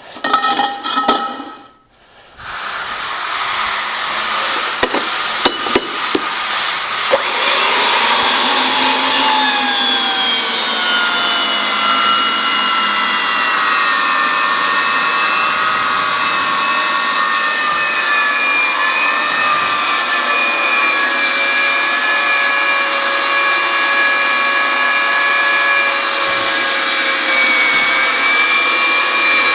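Power tool running steadily under load on 2-inch steel gas pipe, with a metallic squeal in several pitches that slowly drops. It starts about two seconds in, after a short noisy burst, and rises to full level by about seven seconds.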